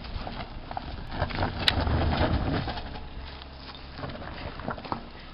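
Citroën C4 Picasso crawling over a rocky dirt track at low revs, its engine hum swelling about two seconds in, with tyres crunching and clicking over stones.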